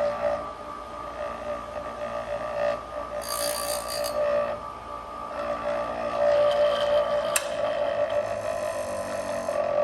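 DGG-6 raker grinder's electric motor running with a steady whine, with a short hissing grind about three seconds in as the wheel takes down a raker on a saw chain, and a sharp tick later on.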